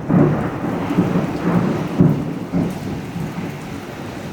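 Thunder from a close lightning strike, rumbling in rolling peals that ease off toward the end, over steady heavy rain.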